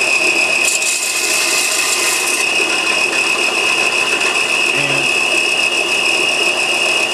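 A 4x36 belt sander running with the back edge of a steel bowl gouge held against its 120-grit belt: a loud, steady grinding noise with a high whine.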